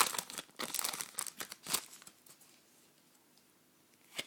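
Paper and foil crinkling and rustling as football trading cards and a pack wrapper are handled, for about two seconds. It dies away to near quiet, with one short tap near the end.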